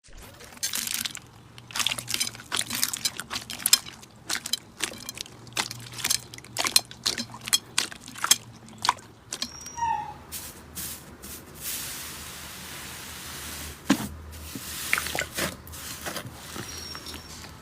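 Slime being pressed and squeezed by hand, making irregular sticky pops and crackles, with a steadier hiss for a couple of seconds past the middle.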